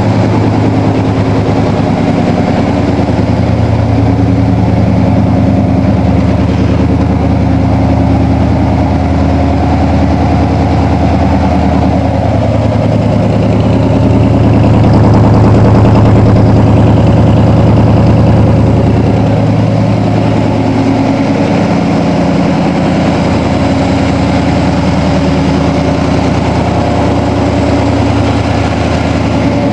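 Chevrolet 350 Vortec V8 idling steadily, its exhaust not yet welded up and only hung loose on the manifolds. It gets a little louder for a few seconds midway.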